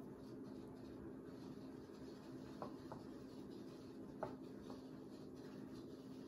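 Chopsticks clicking lightly against ceramic bowls four times, in two pairs, while a shrimp is dipped in beaten egg and coated in a dry powder, over a steady low hum.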